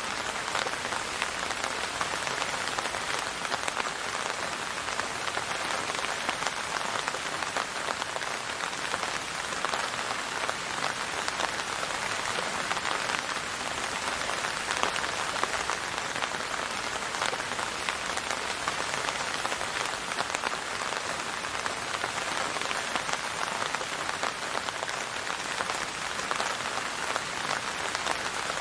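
Steady rainfall, with many fine drops pattering on a surface, even in level throughout, with no music or thunder.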